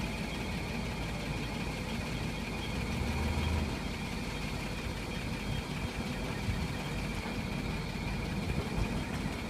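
Vehicle engine idling in neutral, a steady low hum with a deeper drone that swells briefly about three seconds in; the idle is being checked for a rattle or vibration noise.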